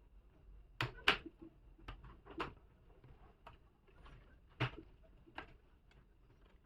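Sharp plastic clicks and snaps, a handful spread over several seconds, the loudest pair about a second in and another near four and a half seconds: the laptop's plastic bottom cover being pried off with a card, its clips popping free.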